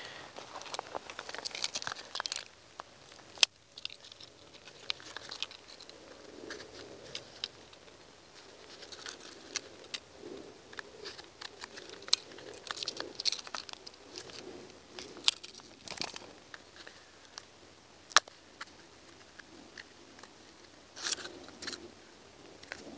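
Paper and cardboard packaging being torn open and crinkled by hand as a sharpening stone is unwrapped. Irregular crackling with scattered sharp clicks.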